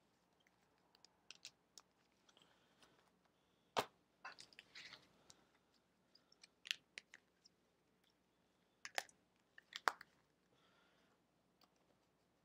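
Rigid plastic card toploaders clicking and tapping against each other as a stack of them is handled and squared up. Sparse faint clicks, with a few sharper taps about four seconds in and around nine to ten seconds in.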